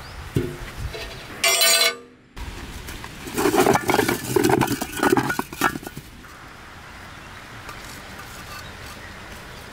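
Clay bricks tipped out of a plastic tub onto grass, knocking and clinking against each other in a dense clatter for a couple of seconds. A shorter ringing clang comes about a second and a half in.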